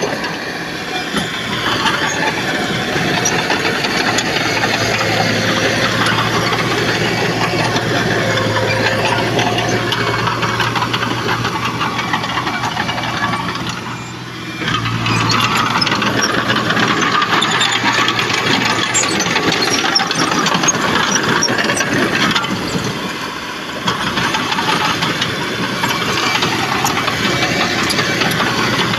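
Diesel engine of a D31PX crawler bulldozer running hard with steady metallic clatter as it works soil. The engine eases off briefly twice, about halfway through and again about three-quarters of the way in.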